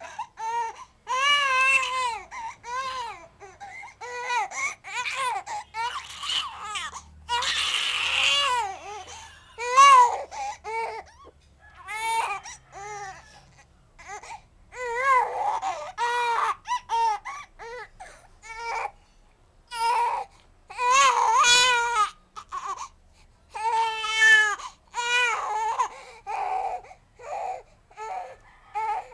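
A two-month-old baby crying in repeated bursts, each cry a short wail that rises and falls in pitch, with brief pauses for breath between them.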